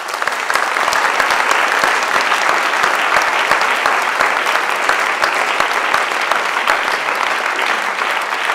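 Audience applauding: many people clapping at once, breaking out suddenly and then holding steady.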